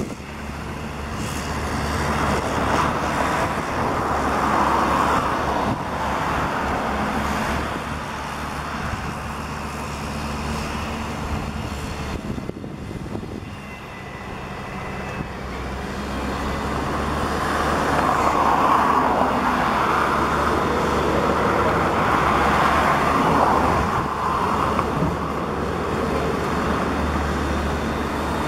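Hyundai wheeled excavator's diesel engine running steadily, swelling louder twice as the machine works its hydraulics to lift the boom and swing the bucket: a few seconds in, and again for several seconds from about two-thirds through.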